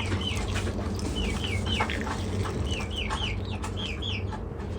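Birds calling: short, high, down-curving chirps repeated in quick clusters of two to four, over a steady low background noise.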